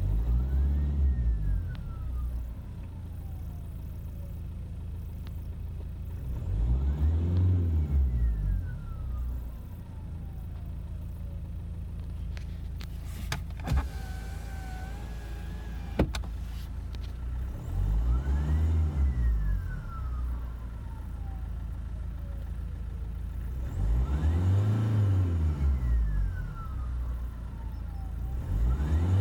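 Kia Ceed 1.6 CRDi four-cylinder turbodiesel revved in short blips, four times. Each blip brings a thin whistle that climbs with the revs and then slides slowly down in pitch for a few seconds after the engine drops back to idle. The whistle's source is unclear: the owner places it roughly at the turbocharger, alternator or exhaust.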